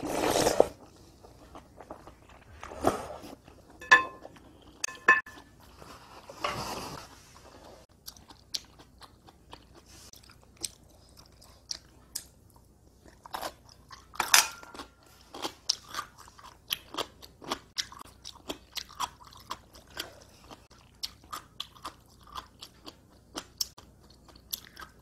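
Close-up eating sounds: cream pasta noodles slurped about the start, a few ringing clinks of a metal fork against the dishes, then crunchy chewing of kimchi with many small crisp crackles.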